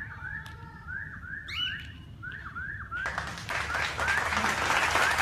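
Cockatiel chirping, a quick run of short rising calls several a second. About three seconds in, a dense rushing noise swells up and grows louder, covering the calls.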